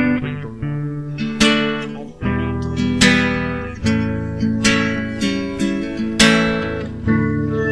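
Acoustic guitar music: chords strummed a little faster than once a second, each one ringing on until the next.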